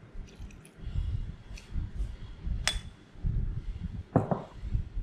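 A metal spoon clinks sharply once against ceramic, with a brief ring, among dull low knocks as the clay mortar and wooden pestle are handled on the table.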